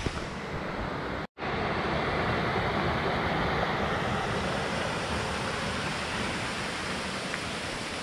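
Steady rushing of a forest mountain stream tumbling over a small rocky cascade. The sound drops out for a moment just over a second in and comes back slightly louder.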